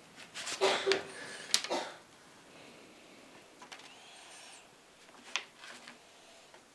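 Handling noises of paper and craft materials on a table: a cluster of crinkling and knocking in the first two seconds, then a few soft clicks and taps.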